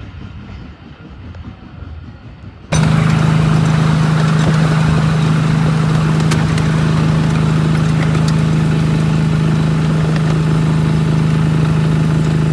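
Small miniature-railway locomotive engine running steadily with a strong, even hum, heard from the train while riding. It starts suddenly about three seconds in, after quieter outdoor background.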